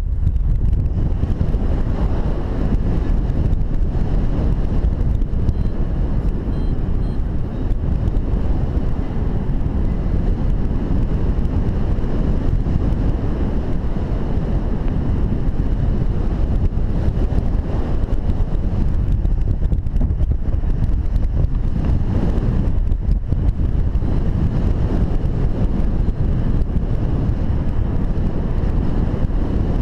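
Steady wind rush buffeting the microphone of a paraglider pilot's camera in flight, a low, even roar of airflow.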